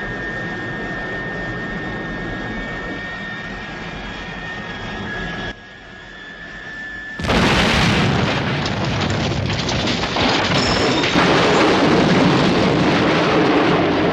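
Jet engine roaring with a steady high whine, which the uploader believes was recorded from a de Havilland Vampire revving up; the roar drops away after about five seconds. About seven seconds in, a sudden loud explosion bursts in and rumbles on with crashing debris.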